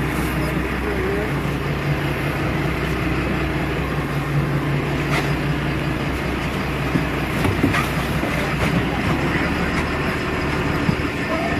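Sportfishing boat's engines running with a steady low drone, over water rushing and splashing against the hull, with a few short splashes or knocks.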